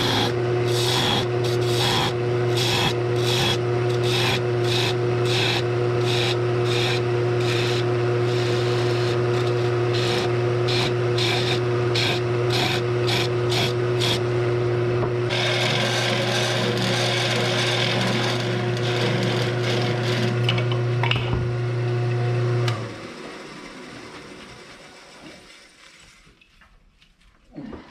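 Wood lathe running with a steady motor hum while something rasps against the spinning wood in rhythmic strokes, about two a second, which later become a continuous rasp. About 23 seconds in the lathe is switched off, and its sound fades away as it winds down.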